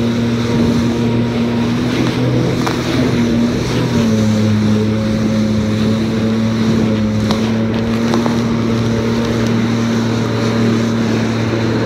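Jet ski engine running steadily at speed, its drone dropping slightly in pitch about four seconds in and then holding, with wind buffeting the microphone and water rushing past the hull.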